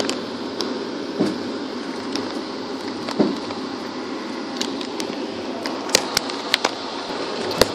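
Passenger train running, heard from inside the coach: a steady rumble, with a few sharp clicks and knocks, most of them close together near the end.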